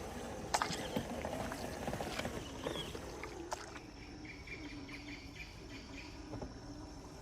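Scale RC crawler (Traxxas TRX4) crawling over creek rocks: the small brushed electric motor and gears whine, wavering with the throttle, and sharp clicks and knocks come from the tires and chassis on rock. Insects chirp in a quick series of short high calls in the second half.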